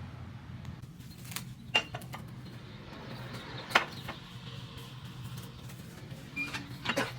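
Scattered light clicks and knocks of small objects being handled, the sharpest about two and four seconds in and a few together near the end, over a steady low hum.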